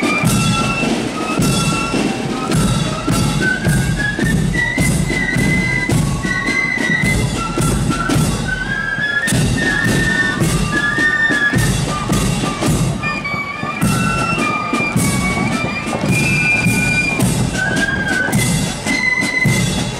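Marching band playing a march while parading: a high wind-instrument melody over a steady beat of drums.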